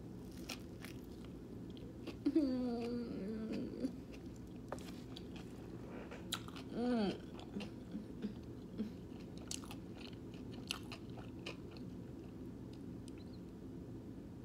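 Close-up chewing of a sandwich, with wet mouth clicks and small bites throughout. Two short pitched sounds stand out: the louder, longer one about two seconds in, and a brief rising-and-falling one about seven seconds in.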